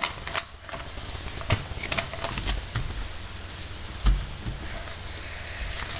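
A sheet of paper rustling and crinkling in the hands as it is folded and its creases pressed, with scattered soft clicks and scrapes, the sharpest about four seconds in.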